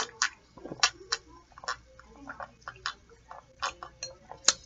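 Someone drinking from a glass: a string of short, irregular clicky gulps as the drink is swallowed.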